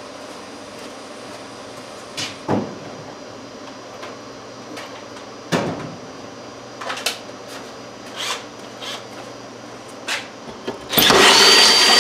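Several knocks and clatters as the cordless drill's dead battery is swapped out, then, about a second before the end, the cordless drill starts and runs steadily at speed with a high whine, drilling into the steel.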